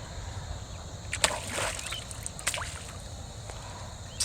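Water splashing: a sharp splash about a second in, a short slosh after it, and another brief splash about a second later, over a steady low outdoor rumble.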